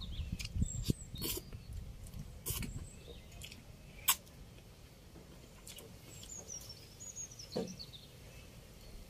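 Close-up eating sounds: chewing and lip smacks as rice and pork dinuguan are eaten by hand, with several sharp clicks, the loudest about four seconds in. Between about six and seven and a half seconds in, an animal gives a high call that falls in pitch in steps.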